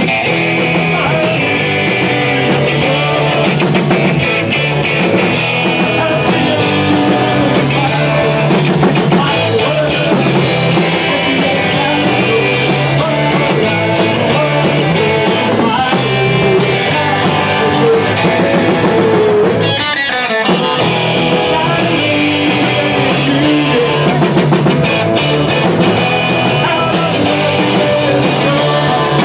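Live rock band playing loudly: electric guitars, bass and drum kit, with a male singer at the microphone. The band stops briefly about twenty seconds in, then carries on.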